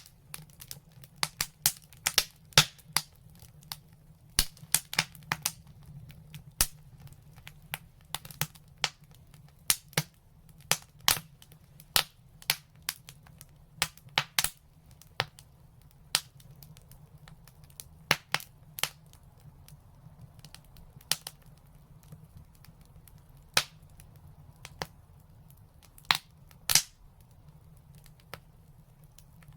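Wood fire crackling: irregular sharp pops and snaps, several of them louder, over a low steady rumble.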